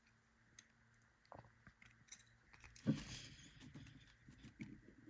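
Faint clicks and scraping of small metal tools prying at the retaining C-clip on a double Euro lock cylinder, with a louder scrape about three seconds in.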